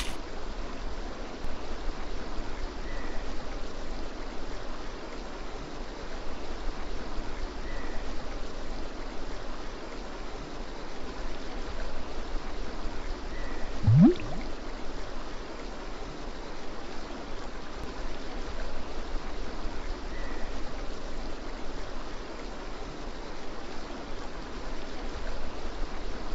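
Steady rushing of a river. About halfway through, one short sound rises sharply in pitch and is the loudest moment.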